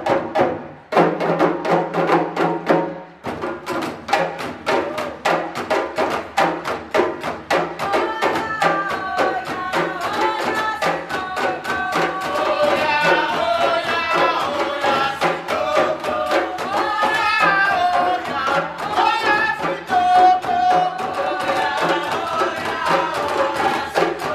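West African hand-drum ensemble of djembes and dunun drums playing a fast, steady rhythm, with a melody line joining over the drums about eight seconds in.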